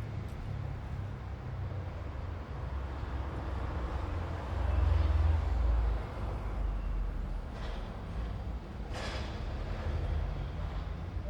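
Street traffic: a steady low rumble of engines, with one vehicle passing close about four to six seconds in, the loudest moment, and two shorter rushing swells of passing vehicles near the end.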